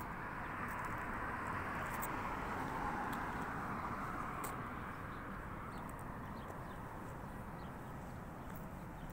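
Steady outdoor background rush that swells for a few seconds near the start and then eases, with scattered light clicks.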